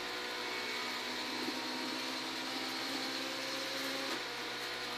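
Toyota Starlet KP61 rally car's 1600 cc engine pulling at steady high revs in fifth gear, heard inside the cabin. The note changes about four seconds in, at the shift into sixth on the sequential gearbox.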